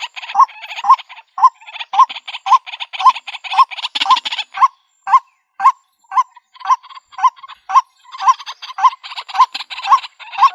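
White-breasted waterhen calling: a long run of harsh repeated notes, about two a second, each with a short pitched note underneath. The harsh part thins out for a few seconds in the middle while the pitched notes keep going.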